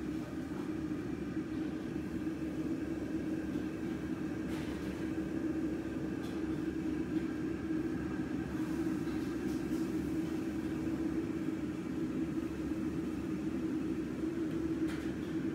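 Steady low rumble of kitchen equipment, with a few faint clicks.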